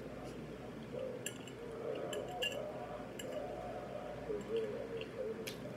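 A metal fork clinking against a ceramic dinner plate a few times in sharp, short strikes while food is picked up, over soft chewing.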